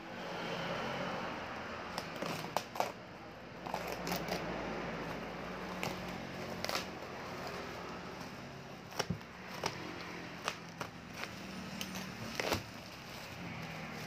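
Plastic parcel wrapping and packing tape crinkling and crackling as they are handled and pulled open by hand, with a number of sharp snaps along the way.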